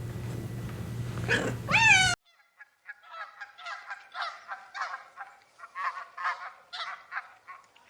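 A cat meows once, then the sound cuts to a flock of farm fowl giving rapid, overlapping honking calls for about five seconds.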